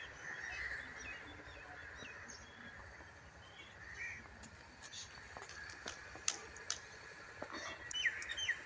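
Birds chirping and calling, faint at first, then a quick run of short, sharp chirps over the last few seconds.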